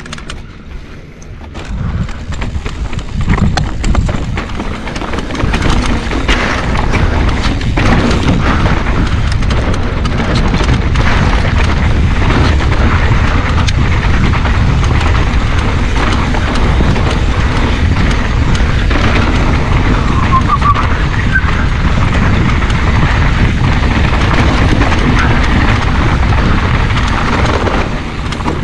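Wind buffeting the microphone over the rumble of a mountain bike descending rough singletrack at speed, with many small knocks and rattles from the tyres and bike over rocks and roots. Quieter for the first second or two, then a steady loud rumble.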